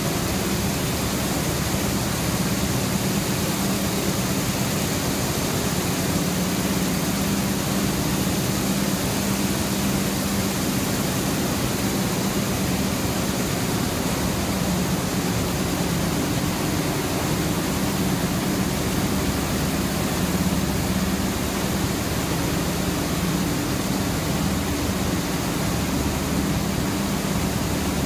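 Steady din of zipper-tape needle looms running in a weaving shop: an even, dense rushing noise with a steady low hum underneath.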